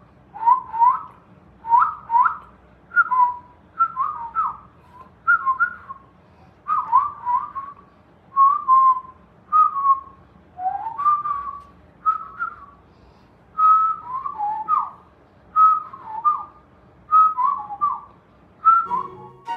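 Short, quick whistled chirps, each a little run of sliding notes at about the same pitch, repeating roughly once a second.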